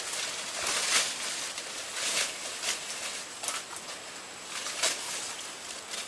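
Footsteps crunching through dry leaf litter and a body brushing through forest undergrowth, in irregular crunches and rustles, the loudest about one second in and again near the end.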